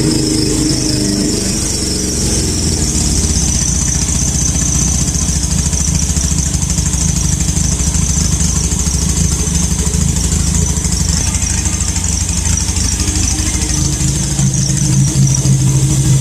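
F300 motorcycle engine running with a turbo-simulator whistle fitted in the exhaust outlet: a steady, high-pitched whistle, like air squealing out, over the engine's exhaust note. The engine gets louder near the end.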